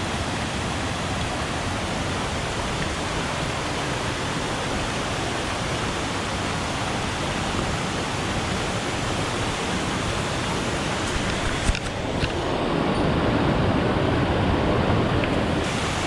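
Mountain stream rushing steadily over rocks. About twelve seconds in there is a brief click, and after it the water sounds louder and deeper.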